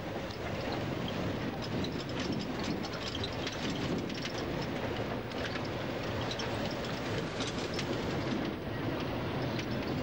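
Inside a moving service bus: steady engine and road drone, with the cabin rattling and clattering over the road throughout.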